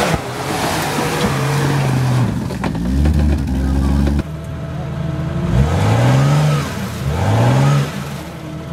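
Jeep Cherokee XJ off-road trucks' engines revving hard in repeated bursts, pitch rising and falling as the wheels spin and claw through dirt and mud. The sound jumps abruptly about four seconds in, and two strong rev sweeps follow.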